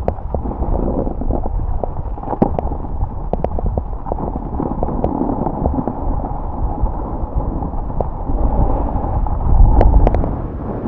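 Snowboard sliding down a groomed ski piste, its base and edges scraping over the snow, with wind buffeting the microphone. There are scattered clicks, and it grows louder near the end.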